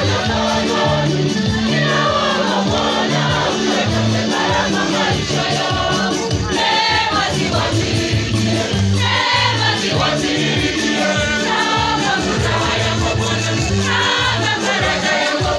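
Youth choir singing a gospel song, accompanied by a Yamaha PSR-S970 arranger keyboard with a steady, stepping bass line.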